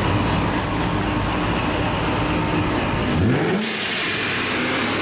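Chevrolet Corvette C6's V8 running loudly at low speed, with a quick rev about three seconds in that rises in pitch and then holds.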